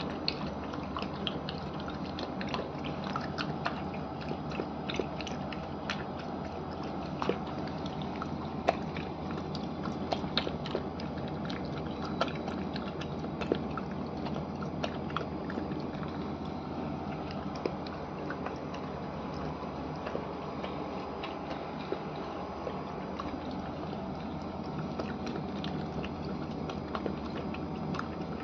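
A puppy eating soaked kibble from a stainless steel bowl: wet chewing with many irregular sharp clicks, over a steady low hum.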